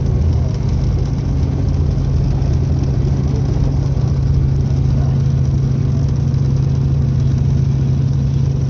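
Helicopter engine and rotor running, a loud, steady low drone.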